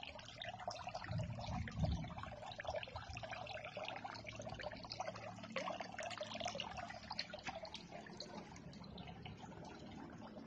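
Pumped water trickling and splashing as it flows along a shallow tarpaulin channel over tubifex worms, with a steady low hum underneath. There is a dull low bump about two seconds in.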